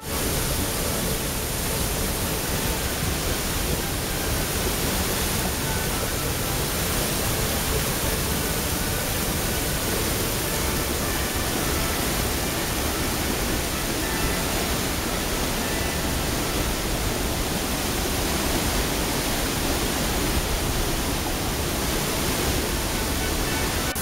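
Floodwater rushing in a loud, steady din as it pours through a coarse screen rake over a lake's outlet weir and down a stepped spillway; it cuts in suddenly at the start. The lake is about a metre above its normal level, so the outflow is at full flood.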